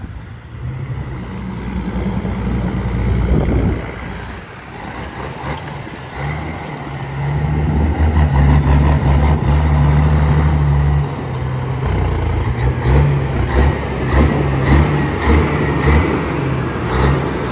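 Heavy diesel engine of an old red Autocar tri-axle dump truck driving up close, a deep steady drone that is loudest from about eight seconds in and dips briefly around eleven seconds. In the first few seconds a smaller vehicle passes and fades away.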